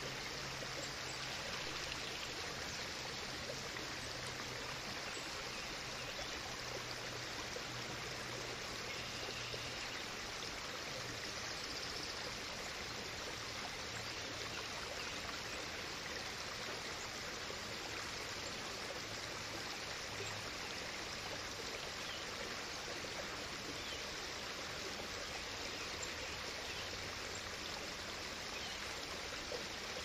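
Steady, even rushing of running water, with no distinct duck calls or splashes standing out.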